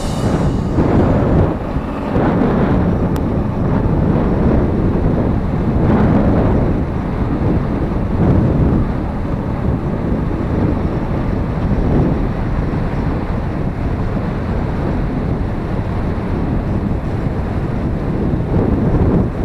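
Wind buffeting the microphone of a moving Jawa 50 typ 21 moped, swelling every few seconds, with the moped's small single-cylinder two-stroke engine running underneath.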